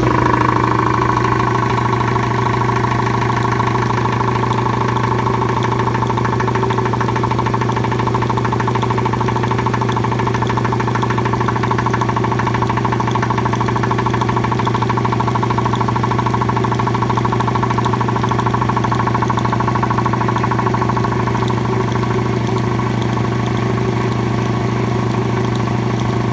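Belt-driven air compressor pump running steadily, driven by a Vevor 2 hp electric motor under load.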